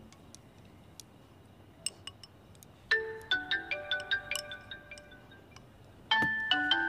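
Smartphone ringing with a marimba-style ringtone: a melody of short plinking notes that starts about three seconds in and begins again near the end.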